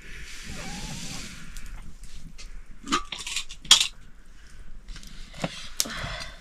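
Metal cooking pots and utensils clinking and knocking, with a few sharp strikes in the second half, the loudest about four seconds in. A short hiss comes first.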